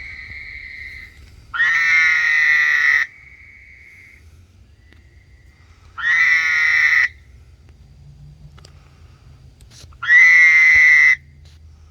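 A male frog giving its loud mating call: three rich, pitched calls about a second long, roughly four seconds apart. A fainter steady whistle-like tone sounds near the start and again just after the first call.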